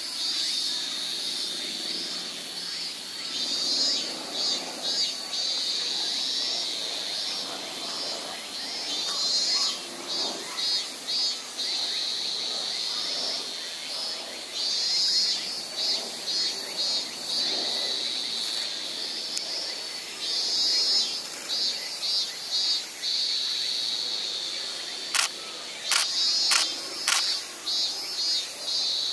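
A steady outdoor chorus of insects singing, broken every few seconds by bursts of rapid trilling pulses. A quick run of camera shutter clicks comes near the end.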